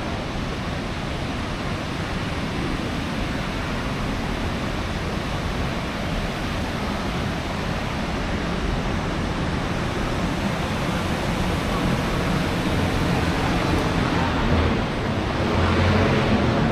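Steady rush of water from Huangguoshu Waterfall, a very large waterfall, slowly getting louder.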